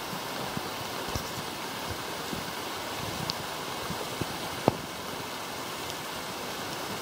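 Steady rush of a mountain stream running through a rocky gill. A sharp click or knock about two-thirds of the way in, with a few fainter knocks around it.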